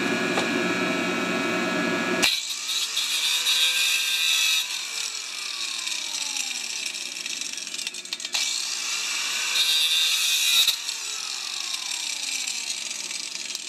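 Hand-held angle grinder running, then cutting off sharply about two seconds in. After that it is switched on twice in short bursts, each time spinning up and then winding down with a falling whine.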